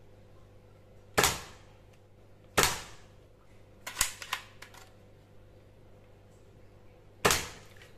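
Toy foam-dart rifle firing three times, each shot a sharp pop with a short airy tail: about a second in, a second and a half later, and near the end. A few lighter clicks come in between, around the middle.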